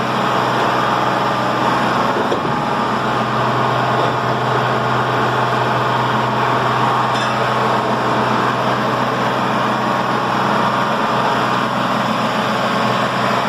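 An engine driving the site's pump machinery, running steadily at constant speed with an even, unbroken hum.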